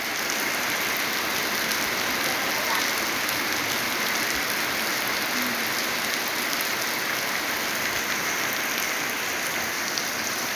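Heavy rain pouring steadily onto a puddled dirt yard and trees, an even, dense hiss.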